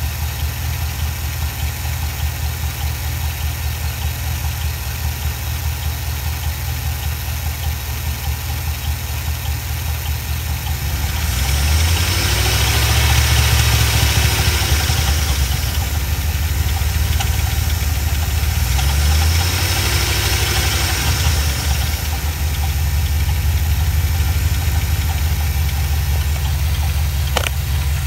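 A 2007 Chevy Silverado's 4.8 L Vortec V8 idling, heard close up in the open engine bay, then revved briefly twice, about eleven and nineteen seconds in, each time rising and settling back to idle. The owner is chasing a steady tick that follows engine speed, which he suspects is a bad lifter in the valve train, though a bad pulley or belt is also in question.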